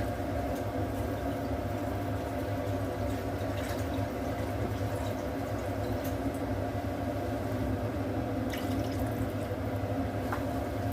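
Water running steadily into a soup pot as it is topped up with more water.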